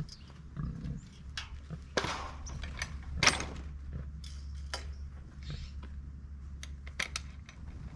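Clanks and rattles of a metal pen gate and its latch being handled, with scattered short knocks and two louder scraping noises about two and three seconds in.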